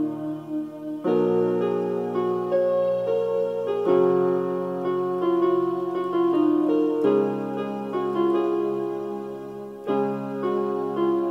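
Keyboard with a piano sound playing slow solo music: held chords with a melody over them, a new chord struck about every three seconds.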